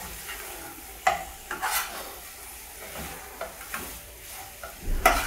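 Steel spoon stirring and scraping paneer cubes through thick masala in a stainless-steel pan, over a low sizzle of frying. Sharper scrapes come about a second in, near the middle, and loudest near the end.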